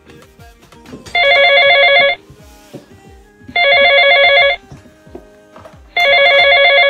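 Cordless desk telephone ringing with an electronic trilling ring: three rings, each about a second long and about two and a half seconds apart.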